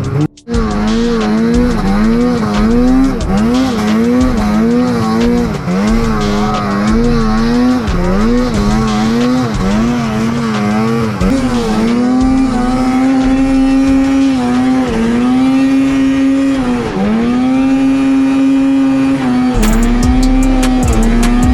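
Snowmobile engine revving up and down over and over, then held at a steady high pitch. A low thumping beat comes in near the end.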